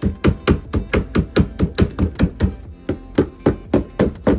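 Espresso machine portafilter being knocked sharply and repeatedly, about four to five hits a second, to shake the used coffee grounds out of its two-shot filter basket.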